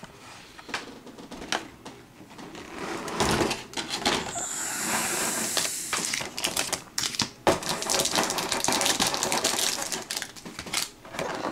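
Clear plastic packaging tray of a card collection box being handled: an irregular run of clicks and crackling plastic, with a denser rustle from about four to six seconds in.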